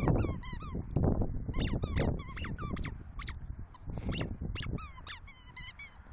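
A dog chewing a rubber squeaky toy, squeezing out quick runs of high squeaks, several a second, with short pauses between the runs.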